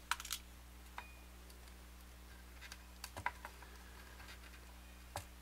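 A few light, scattered clicks and taps of small pickup springs being gathered from a guitar body with a wooden stick and fingers. There is one click at the start, one about a second in, a cluster about three seconds in and one near the end, over a faint steady hum.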